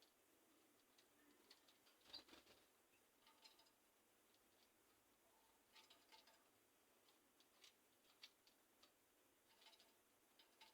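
Near silence with faint scattered clicks and ticks and a few faint short canary chirps, about six and ten seconds in.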